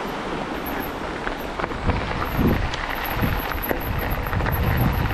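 Wind buffeting the microphone over the steady rolling noise of an e-mountain bike's tyres on a forest path. The low wind gusts grow stronger from about two seconds in.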